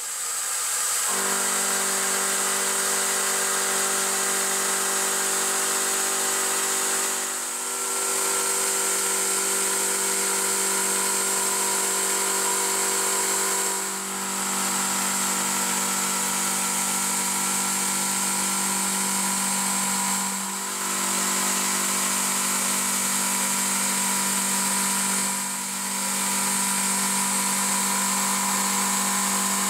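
CNC milling machine's spindle running steadily as an end mill cuts into a cast-iron brake rotor, a steady whine over a high hiss. The sound dips briefly four times, about every six or seven seconds.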